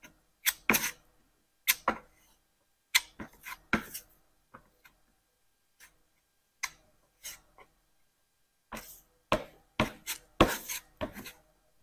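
Two-part body filler being mixed with its hardener: short scraping strokes in irregular bursts, with a pause of about two seconds partway through.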